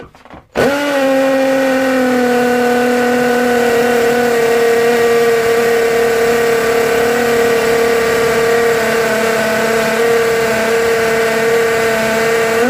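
Ryobi R18PD3 18 V cordless hammer drill-driver running flat out in hammer mode, a masonry bit grinding into hard cast concrete. It is a steady pitched drone that starts about half a second in and sags a little as the bit bites. The bit makes almost no headway, which is a sign that the drill's hammer action is too weak for concrete this hard.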